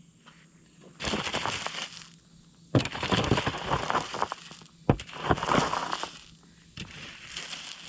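Loose gravel being shovelled: four crunching scrapes of the shovel blade through the stone, each lasting about a second.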